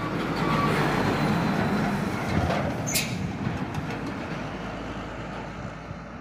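A heavy Hino cargo truck passing close by and rolling away, its engine and tyres loud at first and fading steadily as it pulls off. A brief hiss comes about three seconds in.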